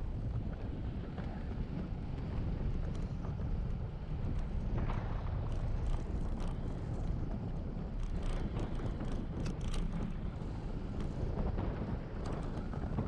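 Wind buffeting the microphone of a bike-mounted camera during a fast bicycle descent on a paved road: a steady low rumble, with scattered clicks and rattles from the bike over the road surface, more of them past the middle.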